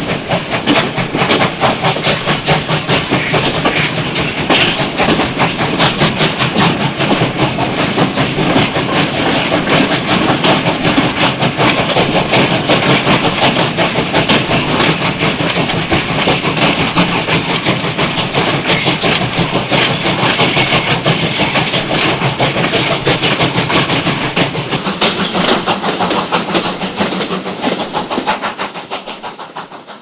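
Steam train running along, heard from a carriage doorway: dense, rhythmic chugging and wheel clatter on the rails, fading out near the end.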